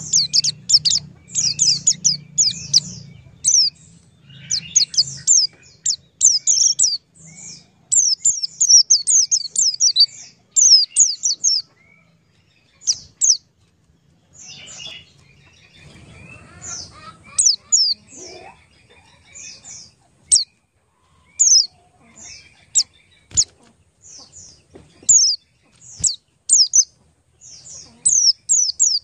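Small birds chirping: many short, high chirps, each falling in pitch, given in quick clusters with brief pauses between.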